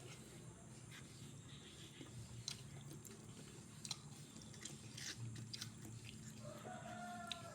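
A person chewing a mouthful of fried tempeh and rice, with faint, scattered crunches and wet mouth clicks.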